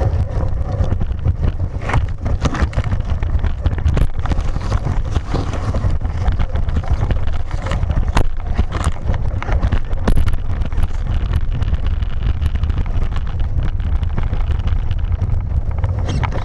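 Slash VXL RC truck driving over rocks and grass, picked up by a camera strapped to the truck. A steady low rumble of vibration and wind on the microphone is broken by scattered sharp knocks as the truck bounces over stones.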